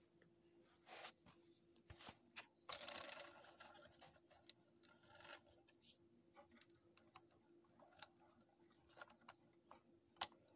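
Near silence: faint scattered clicks and a brief rustle about three seconds in, over a faint steady hum, with one sharper click near the end.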